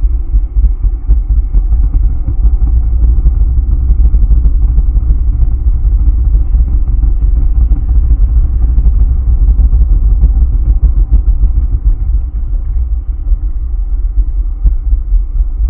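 Loud, deep, steady throbbing rumble with a low hum, an ambient drone soundtrack laid over the painting.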